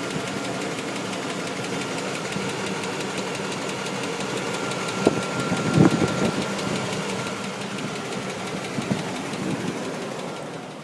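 The 5.7 L Vortec V8 of a 1998 Chevrolet Tahoe running with a steady, rapid knock, with a couple of louder thumps about halfway. The owner reports the knock together with low oil pressure since the intake gasket was replaced.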